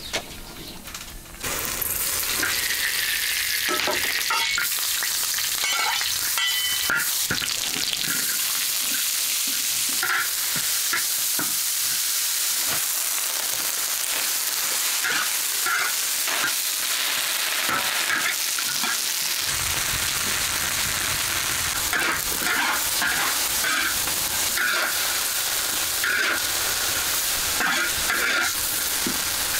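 Leafy greens sizzling as they are stir-fried in a large wok, starting about a second and a half in, with a metal spatula scraping and clicking against the pan as they are tossed.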